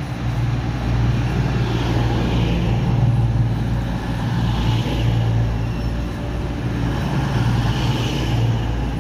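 CrossCountry Class 220 Voyager diesel multiple unit running alongside the platform, its underfloor diesel engines giving a steady low hum as the coaches pass. A higher hiss swells and fades about every three seconds.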